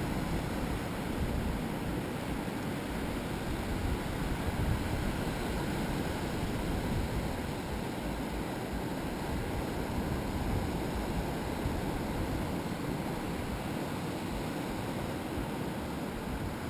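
Steady rush of surf on a sandy beach, mixed with wind rumbling on the microphone.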